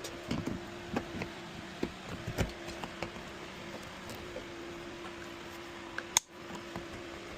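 A hand tool cutting the plastic tabs at the top of a nail-on plastic electrical box gives scattered light clicks and handling noises, with one sharp snap about six seconds in. A steady low hum runs underneath.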